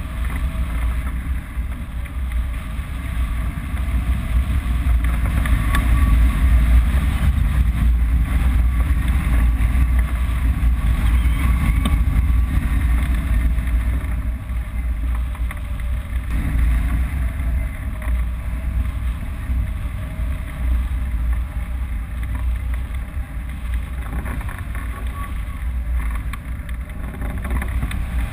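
Wind buffeting the microphone of a camera mounted on a hang glider's wing in flight: a steady, loud, low rumble of rushing air.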